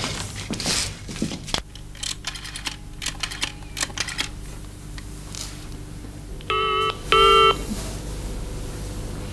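Telephone being dialled, a quick run of dial clicks, then the ringing tone in the earpiece: one double ring, two short rings close together, about six and a half seconds in, as the call rings through before it is answered.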